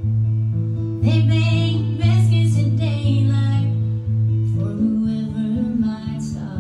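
Acoustic guitar strummed in a slow country rhythm, a new chord struck about once a second and left ringing.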